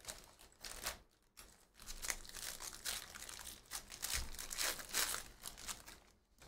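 Foil wrappers of Panini Donruss basketball hobby packs crinkling as they are handled, then tearing as a pack is ripped open. The sound comes as a run of short crackles.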